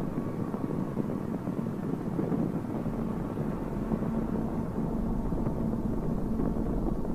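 Steady engine drone with a constant low hum and noise underneath, holding level throughout.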